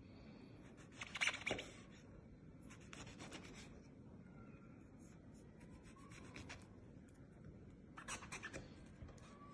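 A kitchen knife slicing through common stinkhorn eggs against a cutting board, in a few short bursts of crisp scraping and tapping. The loudest burst comes about a second in.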